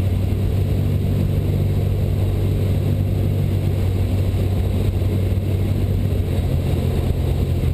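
Cessna 172 Skyhawk's piston engine and propeller droning steadily in the cockpit at reduced power on short final, with a slight change in pitch about six seconds in.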